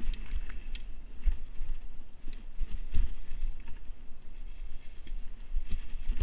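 Mountain bike rattling down a rough, leaf-covered dirt trail: a dense, irregular clatter of small clicks and knocks from the bike over bumps, over a heavy low rumble, with a few harder jolts, the strongest about three seconds in.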